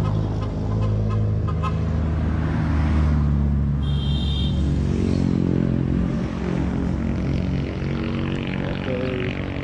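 Motorcycle engines idling steadily, with a brief high tone about four seconds in.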